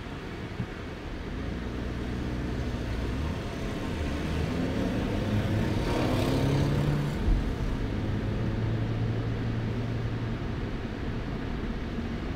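Car engine and road noise heard from inside the cabin. The engine note rises as the car accelerates, then holds steady. A short thump about seven seconds in.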